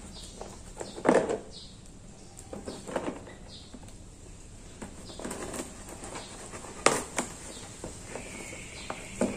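A shipping package being opened and handled by hand: irregular rustling and crinkling with a few sharp clicks, the loudest about a second in and about seven seconds in.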